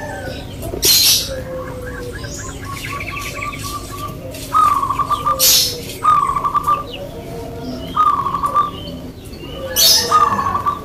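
Caged zebra doves (perkutut) singing their staccato, trilled cooing song in short repeated phrases, with small birds chirping in the background. Three brief loud hissy bursts come about a second in, in the middle and near the end.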